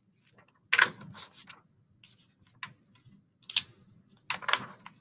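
Pages of a picture book being opened and turned by hand: a few short paper rustles and handling clicks.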